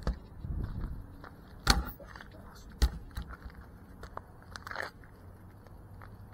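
Handling noise picked up by an FPV drone's onboard camera as the drone is carried and set down on pavement. Scattered rustles and clicks, with two sharp thumps about a second apart.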